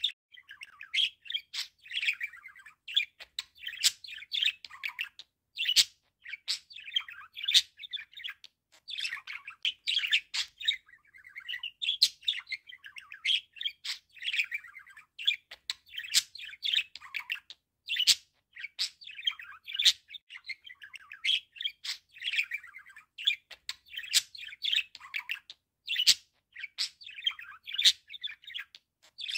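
Budgerigar warbling and chattering without letup: a fast stream of chirps, squeaks and sharp clicks.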